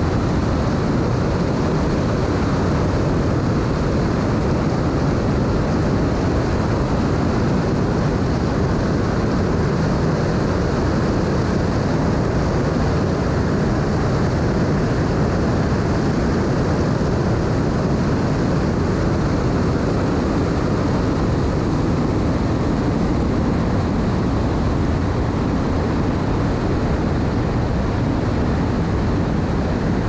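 Fountain 47 powerboat running fast across open water: the steady rush of its triple Mercury 1350 engines blended with wind and water noise over the bow, unchanging throughout.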